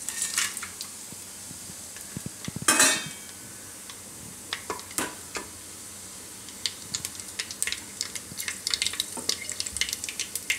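Whole spices (cumin, bay leaf, dried red chillies, star anise, cinnamon) sizzling and crackling in hot oil in an aluminium pressure cooker: the tempering of a curry. A loud hiss comes about three seconds in, and the sharp pops come thicker in the second half.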